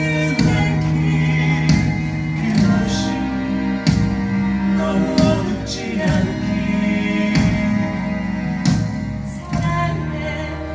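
A musical-theatre song: held sung notes over instrumental accompaniment.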